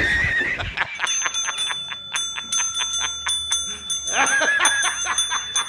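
A dog pawing a counter service bell over and over, a fast run of dings about four or five a second, the ringing hanging on between strikes. A wavering voice-like call sounds over the dinging about four seconds in, and a short high whine is heard just at the start.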